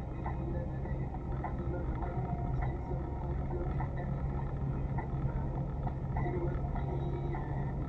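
Car driving in town, heard from inside the cabin: a steady low hum of engine and road noise.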